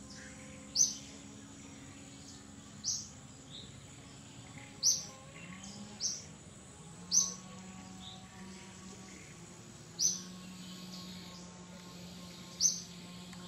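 A bird calling outdoors: a short, high chirp that drops quickly in pitch, repeated seven times at uneven gaps of one to three seconds, over a faint steady low hum.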